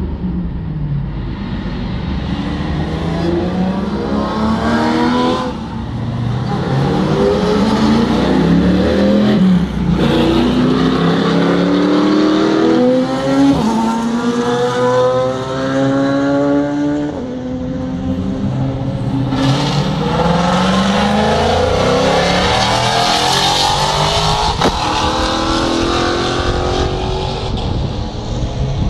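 Sports cars lapping a race circuit, their engines revving up through the gears: the engine pitch climbs and drops back at each upshift, several times, with more than one car heard at once and one passing louder about two-thirds through.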